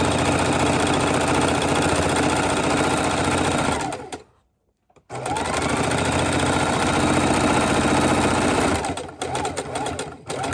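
Electric sewing machine stitching through layered fabric at a steady speed. It stops about four seconds in, starts up again about a second later with its motor rising to speed, runs for a few more seconds, then stops, followed by a few clicks.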